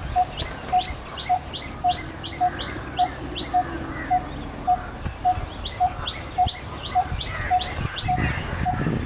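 Coppersmith barbet calling its repeated hollow 'tuk' note at one steady pitch, about two notes a second. Short high chirps from another bird sound in the background for much of the time.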